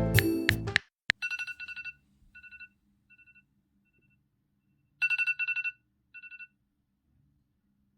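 Electronic telephone ringtone, a rapid trilling ring heard in two bursts, about a second in and again about five seconds in, each trailing off in fainter repeats.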